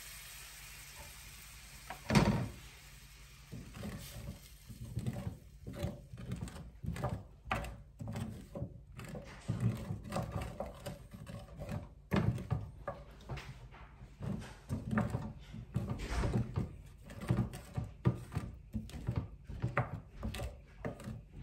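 Kitchen handling sounds: one sharp knock about two seconds in, then irregular knocks and clatter of cookware and utensils being moved about.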